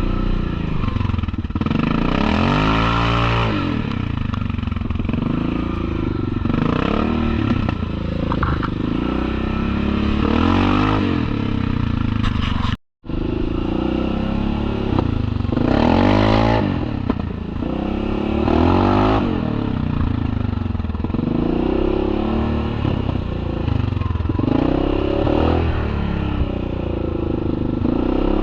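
Yamaha Kodiak 700 ATV's single-cylinder engine revving up and down repeatedly as it is ridden along a trail, with clatter and scraping. The sound cuts out completely for a moment about halfway through.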